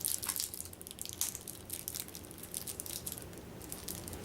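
Plastic shrink wrap on a deck of cards crinkling and crackling as fingers pick at it to get it off, a quick run of sharp crackles that thins out near the end.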